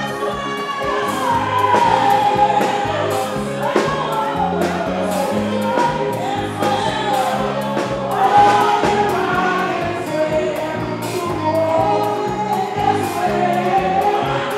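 Live gospel band music: singers with backing voices over a drum kit and a stepping bass line, with a steady beat.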